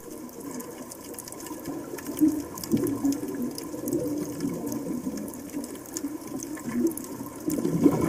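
Underwater sound of churning, sloshing sea water near the surface, with faint scattered clicks, growing louder shortly before the end.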